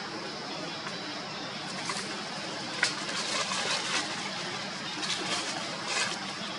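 Steady outdoor background hiss with a few short crackling rustles, a sharp click about three seconds in and more crackles in clusters later.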